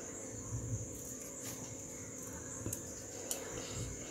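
Scissors trimming net fabric: a few faint snips and clicks spread out in time, with the rustle of the net being handled, over a steady high-pitched hiss.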